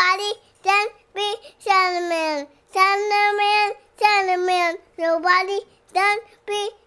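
A child singing the show's theme song in short sung phrases, some notes held, with brief pauses between them.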